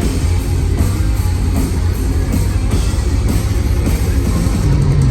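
Heavy metal band playing live at full volume: distorted electric guitars over heavy bass and drums.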